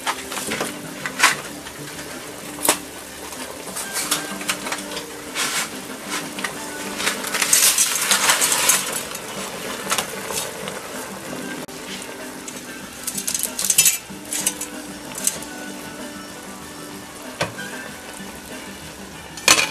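Dry fettuccine rattling and clicking against a stainless steel pasta pot insert as handfuls are dropped in, with sharp metal clinks and a denser burst of rattling about eight seconds in. Faint background music underneath.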